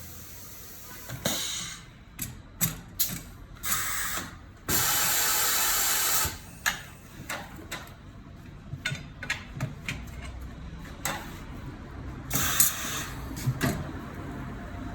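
Tyre-change work on a Suzuki Jimny: three bursts of compressed-air hiss from a pneumatic tool, the longest lasting about a second and a half, among short clicks and clanks of tools and wheel parts.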